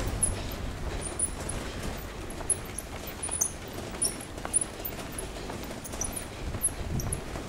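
Pram wheels rolling over brick paving: a steady low rumble with occasional knocks, and faint, very high short chirps scattered throughout.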